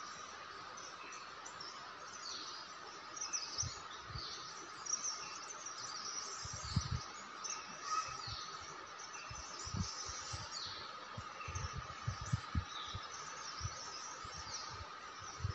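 Forest ambience: many small birds calling in short, quick chirps throughout, over a steady high hum. Scattered low thumps come in from a few seconds in.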